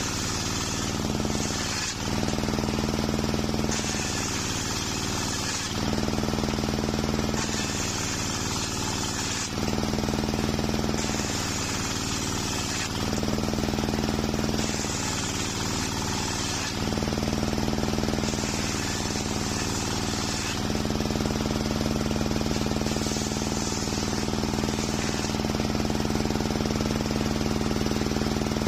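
Large homemade table circular saw running steadily while ripping waru (sea hibiscus) planks. A harsher, higher cutting noise comes in for about two seconds every three to four seconds, about seven times, as the blade bites through the wood between steadier stretches.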